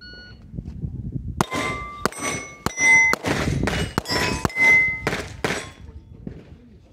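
A short electronic shot-timer beep, then a fast string of about eight 9 mm pistol shots from a Glock 19 over about four seconds. Most shots are followed by the ringing clang of a struck steel plate.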